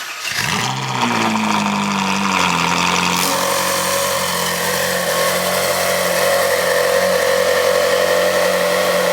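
Ferrari 458 Italia's 4.5-litre V8 starting with a quick flare of revs, then easing down over the next few seconds to a steady idle.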